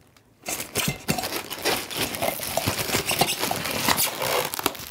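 Plastic wrapping crinkling and rustling in quick, irregular bursts as plastic-wrapped lamp parts are handled and pulled out of their packing, starting about half a second in.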